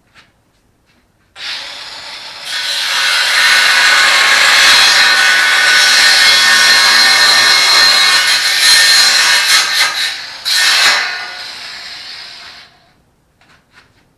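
Ryobi 18V cordless angle grinder spinning up, then its wheel working a piece under load for about eight seconds, lifted off briefly and pressed in again, before the motor runs free and spins down.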